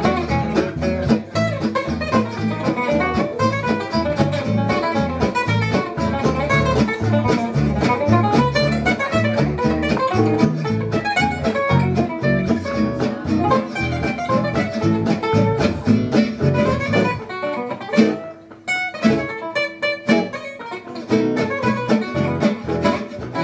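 Four acoustic guitars playing a fast gypsy jazz (jazz manouche) swing tune: a picked lead line over a steady strummed rhythm. The band thins to a brief, sparser break about eighteen seconds in, then comes back in full.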